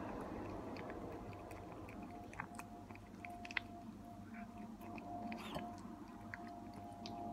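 Ginger cat eating wet cat food from a ceramic bowl: fast, irregular wet chewing and licking clicks, with one sharper click about three and a half seconds in.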